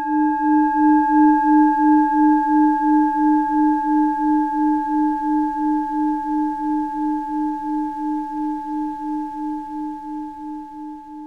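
A single bell-like tone, struck once just before and left to ring, slowly fading away. The low note pulses in a steady wobble about three times a second, with fainter higher overtones above it.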